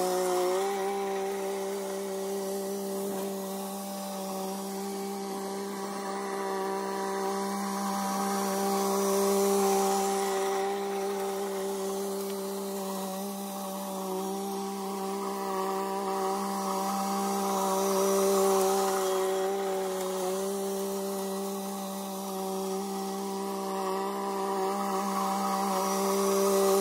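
Small compact tractor engine running at a steady speed while it works a rear implement across overgrown grass, growing louder and fainter as it drives nearer and farther away.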